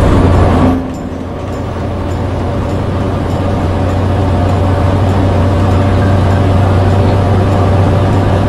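Motor vehicle engine and road noise at highway speed, a steady low drone; it drops sharply in level about a second in, then builds slowly.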